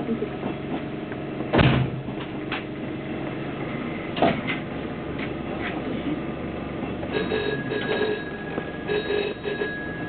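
An electronic ringing tone sounds in short bursts during the second half, inside the cab of a stopped Sanyo 5000 series train, over a steady hum of the train's equipment. Two sharp knocks come earlier, about one and a half and four seconds in.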